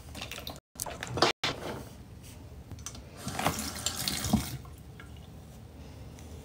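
Water running briefly from a tap, starting about three seconds in and lasting just over a second, after a few short handling clicks.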